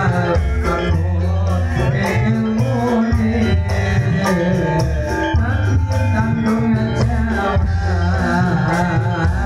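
A man singing a Javanese song into a microphone, his voice wavering with vibrato, over a live band with heavy bass and a steady drum beat.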